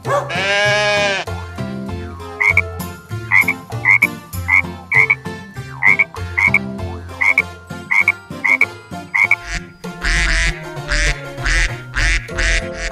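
A run of sound effects over a steady low pulsing beat: a sweeping call just after the start, short high chirps repeated about twice a second, then louder rasping bursts about two a second near the end, croak-like in kind.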